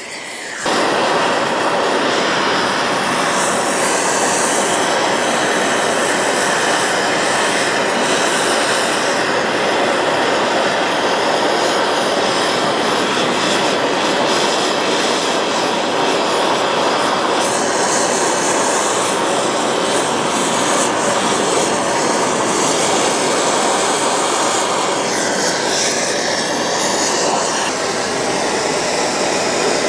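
Gas brazing torch flame burning with a steady, loud rushing noise that starts abruptly about a second in, heating a vise spindle nut for a braze repair.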